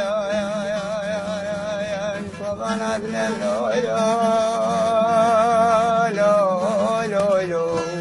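Music: a male voice singing long held notes with a wide vibrato, over a steady low drone.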